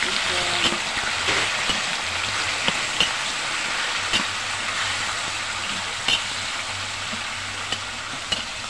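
Raw chicken pieces sizzling in hot oil with garlic, onion and tomato: a steady hiss with scattered small pops and clicks as the pieces are stirred with a spatula.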